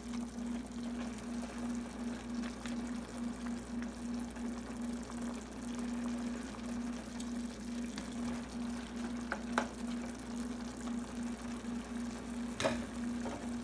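Fish escabeche sauce simmering in a pan, a soft uneven bubbling over a steady low hum, with a sharp click near the end.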